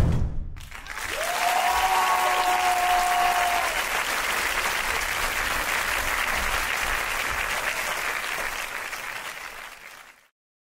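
Audience applause after the music ends, with one long held cheer from the crowd near the start. The applause fades and cuts off about ten seconds in.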